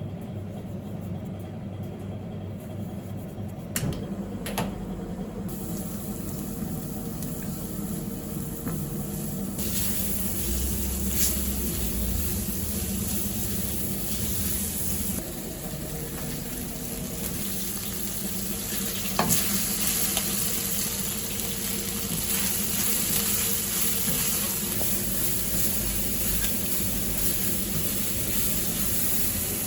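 Food sizzling on a hot cooking surface while it is stirred, with a few sharp utensil clicks. The sizzle gets louder about five and again about ten seconds in.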